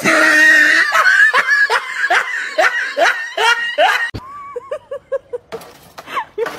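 Human laughter: a loud run of quick pitched 'ha' bursts, about three a second, that stops about four seconds in, followed by a softer, quicker giggle.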